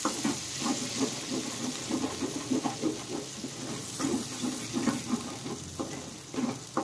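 Gram-flour (besan), onion and tomato mixture sizzling in a frying pan while a spoon stirs and scrapes it, making many quick, irregular knocks over a steady hiss; the besan is starting to stick to the pan.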